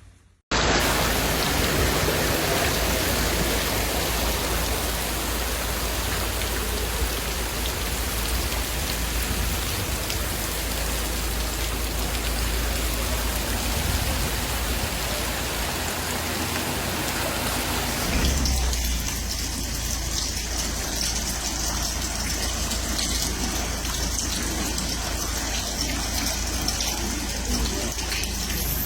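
Heavy rain falling, a dense steady hiss that changes character about 18 seconds in.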